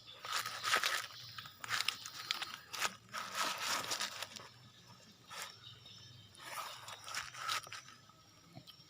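A person chewing a mouthful of fried rice with crunching, in four bursts of about a second each.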